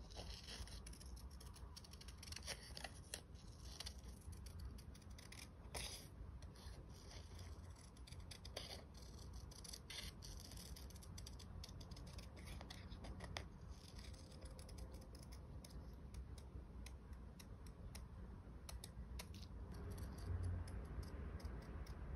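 Small scissors snipping through a printed photo, a run of short, faint, irregular snips as it is cut freehand into an uneven shape.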